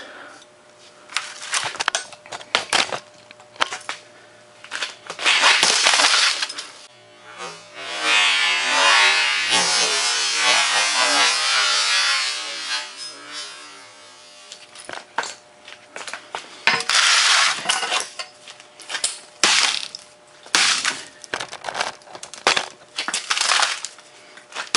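Hammer blows smashing a laptop on a concrete floor: sharp knocks on the plastic casing and keyboard, and the cracking and crunching of the LCD screen. There is a longer stretch of dense crunching in the middle.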